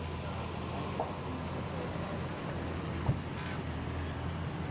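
Steady low mechanical hum, with two faint clicks, about one second and about three seconds in.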